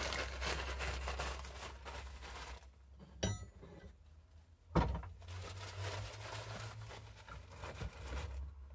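Rustling and crinkling of polyester cushion wadding and steel wool being handled and pulled apart, with two sharp clicks about a second and a half apart near the middle.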